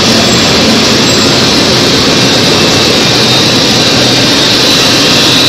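A 1200 mm four-colour flexographic printing press running, a steady, loud machine noise with a thin high whine held throughout.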